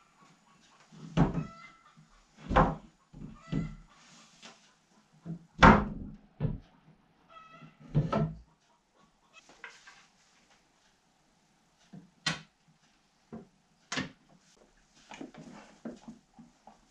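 Wooden knocks and thuds from parts of a wooden kitchen island being handled and fitted together, with a few short squeaky tones among them. The knocks are heaviest in the first half, and later ones are fewer and sharper, with light clicks and rustling.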